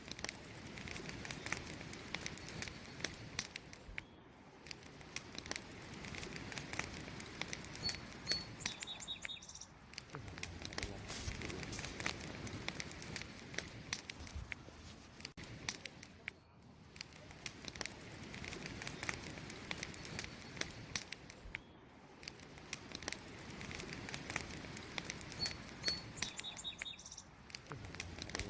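Burning wood crackling and popping in a campfire, with dense sharp snaps over a soft steady rush. A short, faint high chirp comes twice, about a third of the way in and again near the end.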